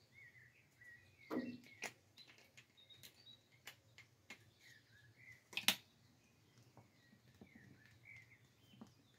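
Small birds chirping repeatedly in the background, with a few sharp clicks and taps from handling a tube of polishing compound and its plastic cap, the loudest a little over halfway through.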